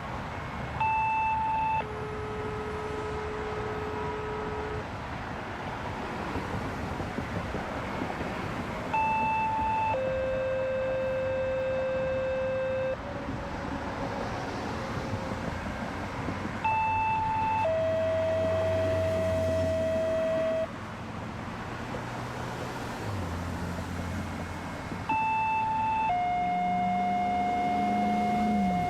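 Two-tone sequential paging tones from a radio receiver: four sets, each a short higher tone followed by a longer steady lower tone of a different pitch each time, the radio activation codes for outdoor warning sirens. Steady highway traffic noise runs underneath.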